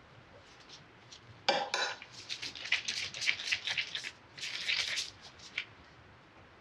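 A metal spoon clattering against a ceramic bowl about a second and a half in, followed by a run of light clicks and taps for a few seconds as gloved hands handle chocolate cookie dough and powdered sugar.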